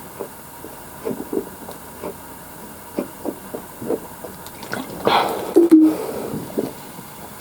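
A person gulping down a fizzy soft drink, with a run of short swallowing sounds about two to three a second. There is a louder throat sound about five seconds in, and then the gulps resume.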